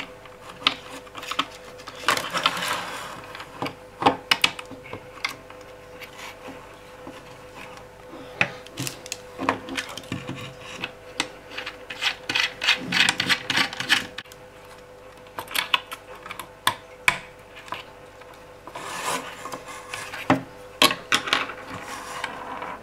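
Handling noise from working inside an opened plastic radio-control transmitter: scattered clicks and taps of the case and small parts, with a few stretches of rubbing and scraping, over a faint steady hum.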